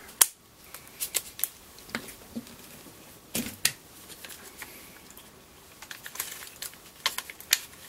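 Sharp clicks and light plastic-and-metal clatter at irregular intervals, the loudest just after the start, as the bit-lock collar of a DeWalt DW660 cut-out tool is twisted to loosen the collet and release the bit.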